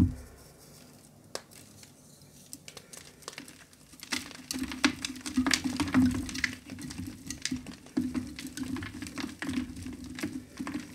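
Reformed gym chalk being crushed by hand, crumbling and crunching. A knock at the very start and a few scattered crackles lead into dense, continuous crumbling from about four seconds in.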